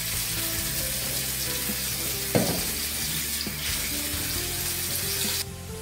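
Bathroom tap running steadily into a sink, cutting off suddenly near the end.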